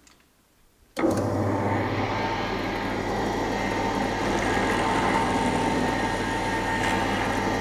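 Pillar drill running steadily with a low motor hum, its bit drilling through a thin copper strap soldered to a copper pipe. The sound starts suddenly about a second in.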